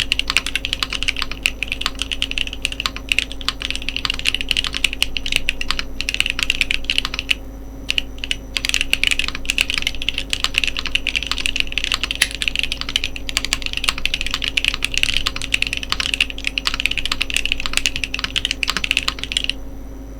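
Steady, dense typing on a TGR Jane v2 ME mechanical keyboard with JWK Ginger Milky switches mounted on an aluminum plate: a fast run of clacky keystrokes. There is a brief pause about a third of the way in, and the typing stops shortly before the end.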